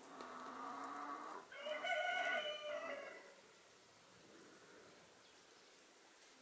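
Australorp rooster crowing once: a lower opening note, then a louder, higher held note, the call ending about three seconds in.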